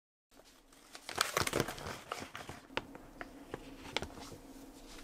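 Shiny plastic stand-up food pouches crinkling and rustling as they are handled, with sharp crackles among the rustle.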